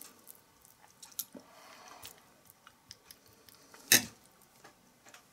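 Fork and knife working through stewed pork and its jelly on a plate: soft wet sounds and a few light clicks, with one sharp clink of the knife on the plate about four seconds in.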